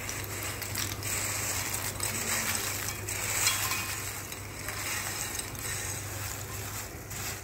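Broken Marigold biscuit pieces sliding off a plate and pushed by hand into a pan, a dry, crisp clatter of many small pieces.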